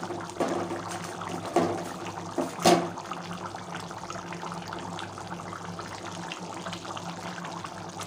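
Chicken curry bubbling in a kadai on a gas stove, the thick, reduced gravy boiling, with a few louder pops in the first three seconds over a steady low hum.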